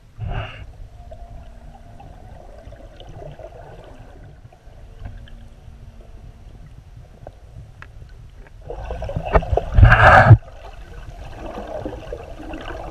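Underwater sound picked up by a camera in its housing: a steady low water rumble and gurgling, with a loud rush of water noise about nine to ten seconds in.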